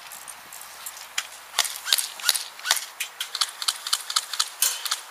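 Airsoft guns firing a rapid, irregular string of sharp cracks that starts about a second and a half in and runs to near the end.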